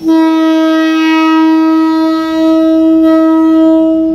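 A train's air horn sounding one long, steady single-note blast, with a slight dip partway through.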